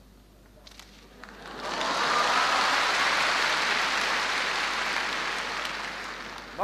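Audience applause that starts about a second and a half in, swells quickly, then holds steady and eases slightly near the end.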